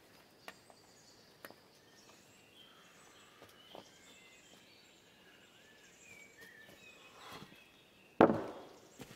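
Birds calling faintly over a low background, with a few light knocks, then one loud sharp knock about eight seconds in that dies away within half a second.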